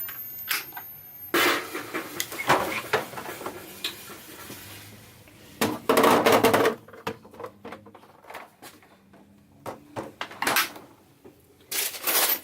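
Groceries being put away in a small camper kitchen. Scattered rustling, with clicks and knocks of items and doors being handled, and one louder rustle about six seconds in.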